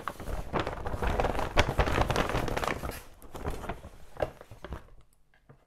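A hand rummaging in a paper gift bag, the paper rustling and crinkling as small cardboard toy boxes shuffle against each other; it dies away about five seconds in.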